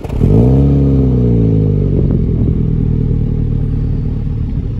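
2021 Mini Cooper S's turbocharged four-cylinder engine heard at its twin centre exhaust tailpipes. The revs flare up sharply at the start and sink back over about two seconds, then it idles steadily.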